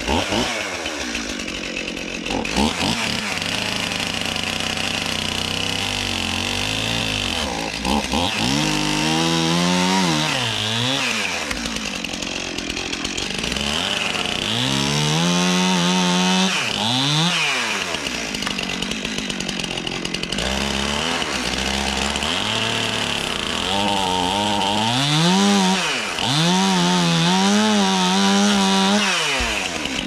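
Two-stroke chainsaw running and cutting into log rafters, its engine revved up and down repeatedly.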